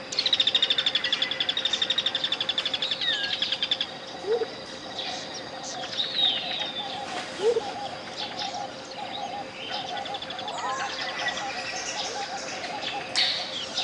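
Tropical jungle birds calling: a fast rattling trill for the first four seconds or so, then scattered gliding whistled calls and a lower pulsing call, over a steady 528 Hz pure tone.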